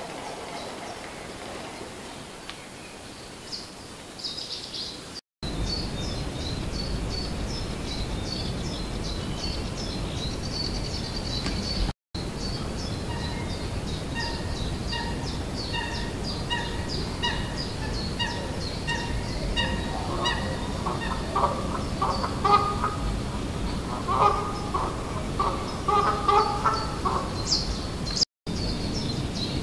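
Marsh birds calling: small birds chirping throughout, one repeating a short two-pitched note at an even pace, and a run of honking waterfowl calls in the second half, over a steady low rumble. The sound drops out completely three times, briefly.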